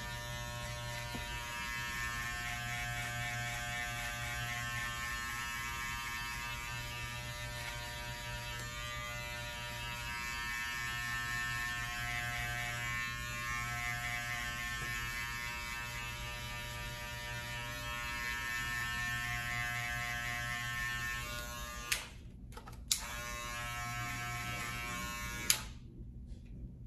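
Electric hair clippers running with a steady buzz during a haircut. Near the end they are clicked off, switched back on briefly, then clicked off again.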